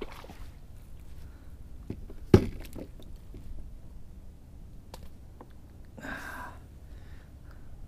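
Handling noises on a fishing kayak: a sharp knock about two and a half seconds in, scattered light clicks, and a brief rush of noise near the end.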